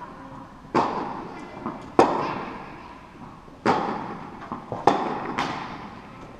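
Tennis balls struck by rackets and bouncing on an indoor court during a rally: about five sharp pops, each trailing off in the echo of a large hall.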